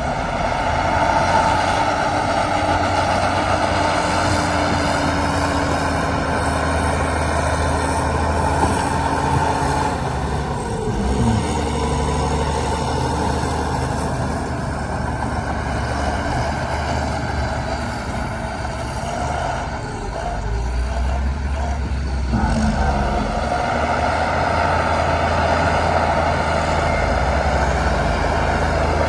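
Heavy diesel earthmoving machinery running steadily under load. The deep engine note changes about eleven seconds in, dips briefly, then shifts again about twenty-two seconds in.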